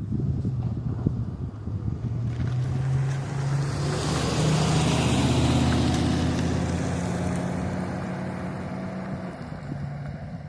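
An engine running steadily as it passes, swelling to its loudest about halfway through and then fading away.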